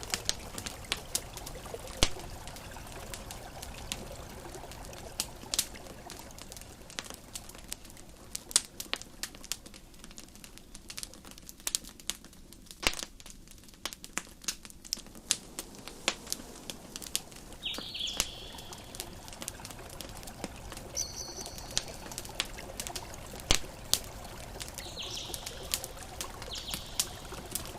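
Campfire crackling: irregular sharp pops and snaps over a steady soft hiss, with a few short high chirps in the second half.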